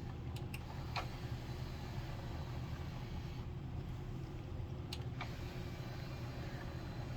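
Samsung HT-TX75 DVD/CD player's tray mechanism running with a steady low hum and a few light clicks, the tray now moving freely after being straightened.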